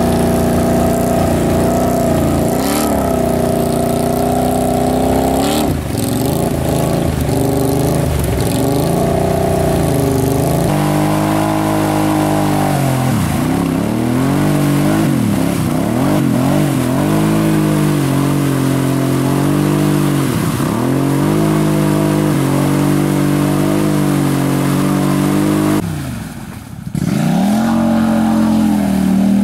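ATV engines revving hard as stuck quads churn through deep mud, the throttle opened and released over and over so the pitch rises and falls again and again. There is a short drop in sound near the end.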